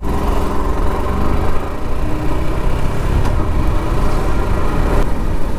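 Motorcycle engine running steadily, heard through a helmet or body-mounted action-camera mic, with a deep constant rumble underneath.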